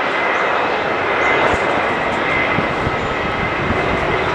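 Airbus A330-300 jet engines at takeoff power during the takeoff roll: a loud, steady roar with a thin, high whine held at one pitch.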